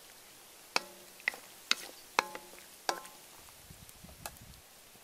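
Wooden spoon knocking against a large metal wok while stirring, about five sharp clacks in the first three seconds, several with a short metallic ring.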